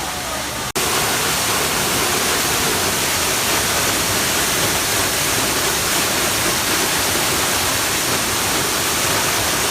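Waterfall: a steady, loud rush of falling water. It drops out for an instant under a second in, then resumes slightly louder.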